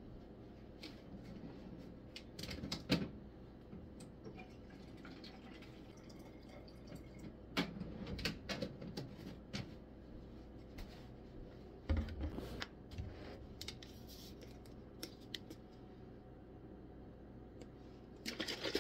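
Plastic water jug and bottles being handled: scattered clicks, taps and knocks of lids and plastic, with a sharper knock about three seconds in and a dull thump about twelve seconds in.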